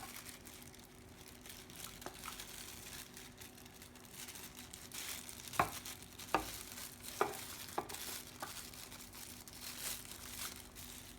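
Plastic packaging crinkling and rustling as a keyboard is handled, with a few light knocks and clicks about halfway through.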